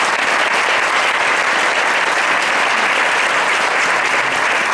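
A room full of people applauding in a loud, steady round of clapping.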